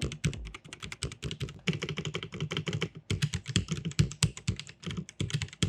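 Typing on a Kreo Hive65 65% mechanical keyboard, with pre-lubed linear switches, double-shot ABS keycaps, a gasket mount and dual-layer sound-damping foam: a fast, steady run of keystrokes.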